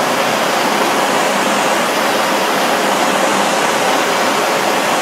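Handheld gas torch burning with a steady, loud hiss as its flame heats a jammed 3D-printer hotend tube to burn out the plastic left inside.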